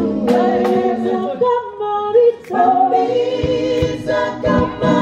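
Women singing gospel into handheld microphones, several voices in harmony, mostly unaccompanied, with a brief break a little over two seconds in.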